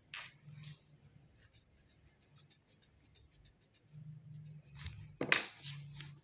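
Pencil on paper: faint light ticks at first, then a few short scratchy strokes in the last two seconds, the loudest just past the middle of that stretch.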